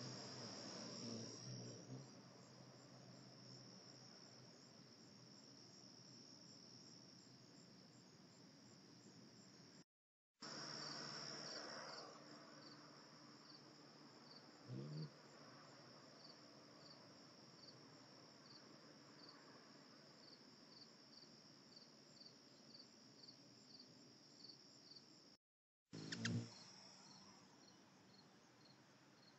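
Summer insects, crickets or katydids, chirping in a steady high trill with a regular pulsing beat. There is a brief low hum about halfway through and a short sharp sound near the end, which is the loudest moment.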